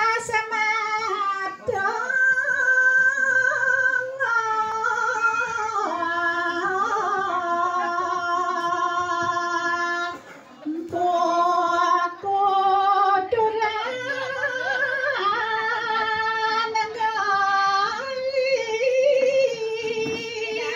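A high solo voice singing slow, long-held notes with wavering, ornamented turns between pitches. It drops out for a moment about ten seconds in, then goes on.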